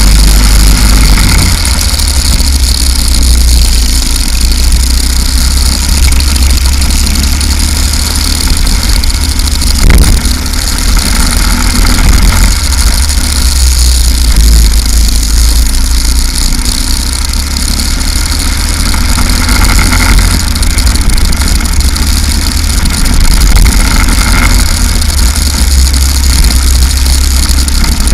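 Go-kart engine running at speed on track, with a heavy low rumble of wind buffeting the onboard microphone and a brief knock about ten seconds in.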